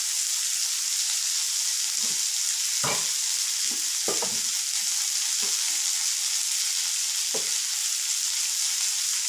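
Steady high-pitched sizzle of sprouted green gram frying with onions and dried red chillies in an aluminium kadai (wok), with a few faint short sounds now and then.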